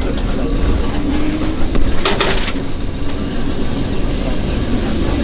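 Lisbon 28 Remodelado electric tram heard from inside the car: a steady low rumble with a faint motor hum, and a brief rush of noise about two seconds in.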